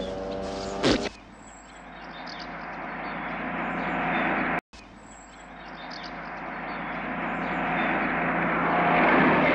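A BMC lorry approaching along a road, its engine and tyre noise growing steadily louder, broken off once by a sudden cut about halfway through, then swelling again to its loudest near the end. A short, loud bang comes about a second in.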